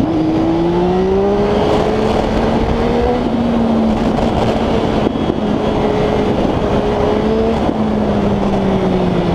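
Triumph Street Triple 675's inline three-cylinder engine running loud through a full Arrow exhaust, its pitch climbing, dropping back, holding and climbing again, then falling away near the end. A steady rushing noise sits beneath it.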